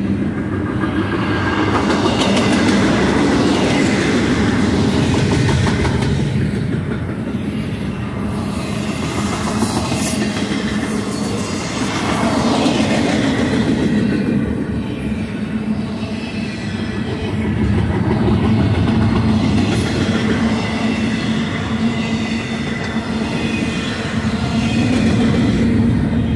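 A double-stack intermodal freight train's container cars rolling past. Steel wheels rumble and clack over the rail joints, and the sound swells and eases as the cars go by.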